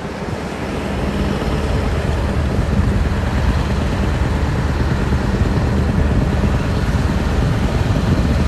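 Scania V8 diesel truck engine running as the tractor unit pulls its trailer past at low speed, the sound growing steadily louder as it comes closer.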